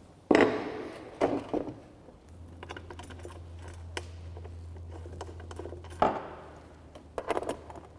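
Metal mounting bracket, bolts and spring washers being handled and fitted to a plastic air cleaner housing: scattered clinks and knocks, with a faint low hum for a few seconds in the middle.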